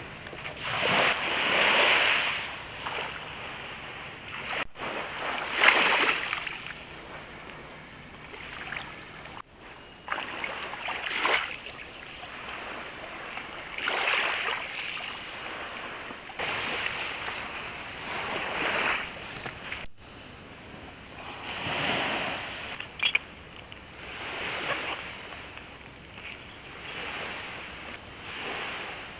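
Small waves washing up onto a sandy shore and drawing back, a swell of surf noise rising and fading about every three seconds. One sharp click stands out about two-thirds of the way through.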